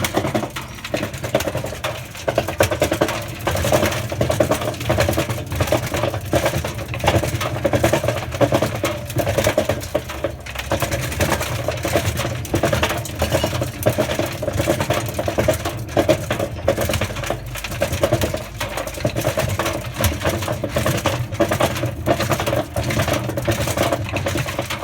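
Hotpoint Aquarius washing machine running with a toy plastic washing machine inside its drum: a steady mechanical hum with dense irregular clattering and knocking as the toy rattles round and rubs against the rubber door seal. The noise cuts off suddenly at the very end.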